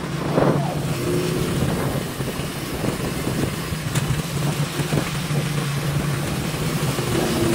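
Tricycle's motorcycle engine running steadily while riding along a road, heard from the sidecar, with wind and road noise.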